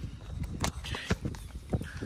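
Light irregular knocks, clicks and rustles of people moving about and handling gear on foot, with no steady rhythm.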